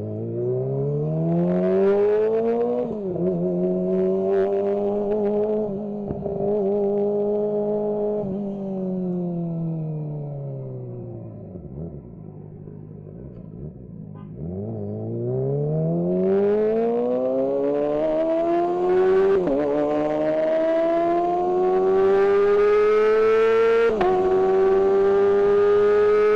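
Kawasaki ZX-25R's 250 cc inline-four engine under way: it revs up and changes gear, holds steady, winds down on the overrun, then pulls hard again, rising through several gear changes to a high-revving scream.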